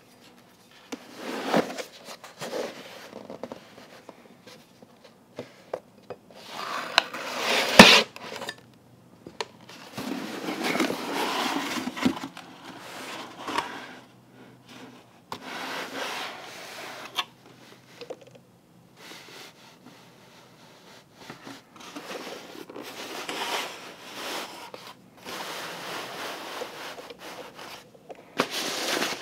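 A knife slicing through the packing tape of a cardboard shipping box, then cardboard scraping and rubbing as the box is handled and its flaps are opened, in irregular bursts with short pauses. A sharp click about eight seconds in is the loudest sound.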